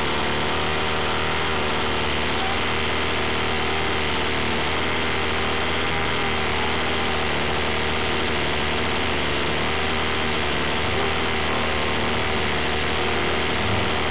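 Two-stroke gas engine of an HPI Baja 5T 1/5-scale RC truck idling steadily, heard close up from the truck's onboard camera.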